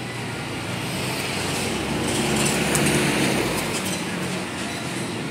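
A motor vehicle passing on the street: engine and tyre rumble that swells to its loudest about three seconds in, then eases off.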